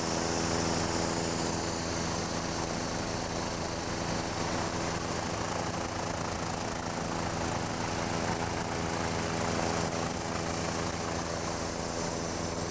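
Turbine helicopter running steadily in flight, heard from inside the cabin with the doors off: an even drone of engine and rotor with a steady pitch and a hiss of air over it.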